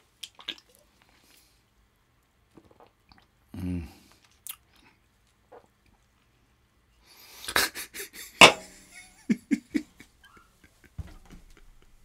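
A man drinking from an aluminium can: faint sipping clicks, a short low hum about three and a half seconds in, then a burst of loud mouth clicks and short voice sounds around eight to ten seconds in. A single knock follows near the end as the can is set down on the wooden table.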